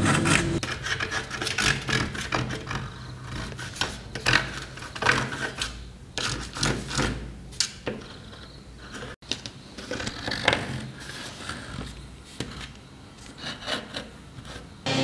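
Hard drypoint needle scratching lines into a metal engraving plate: a run of short, irregular scraping strokes, broken by a brief dropout about nine seconds in.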